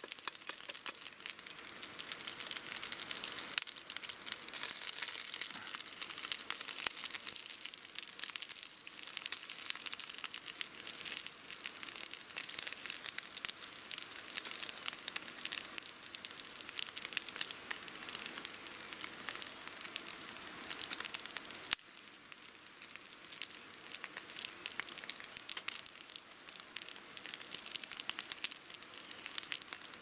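Ham and a freshly cracked egg frying in a small folding frying pan over a wood fire: a steady sizzle full of fine crackles, a little quieter over the last third.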